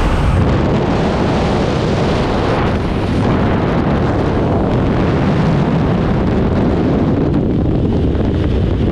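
Heavy wind buffeting the microphone in the open door of a twin-propeller jump plane in flight, a loud, steady rush with the aircraft's engine noise mixed in.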